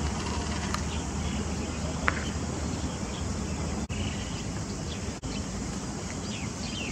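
Steady outdoor background noise with faint insect chirring. A few faint, short bird chirps come near the end, and the sound cuts out briefly twice in the middle.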